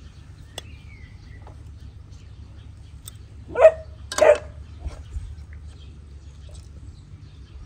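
A dog barking twice in quick succession, about halfway through, over a low steady hum.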